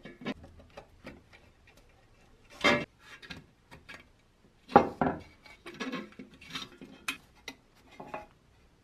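Light metallic clinks and taps from the rusty pressed-steel bed of a toy dump truck being handled and worked with a small screwdriver. Two louder clanks come about two and a half seconds in and just before the five-second mark.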